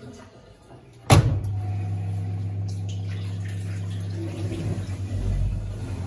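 The lid of a Hajdú Energomat Komfort top-loading washing machine bangs shut about a second in, followed by the machine's steady low hum. A low rumble joins in near the end.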